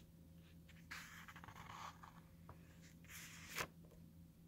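Pages of a book being turned: faint paper rustling about a second in and again around three seconds in.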